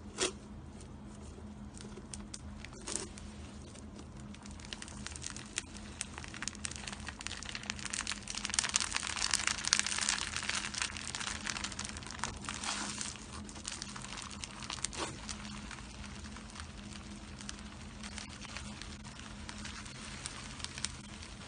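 Hands working slime: dense crackling with small sharp pops, busiest in the middle stretch, over a faint steady hum.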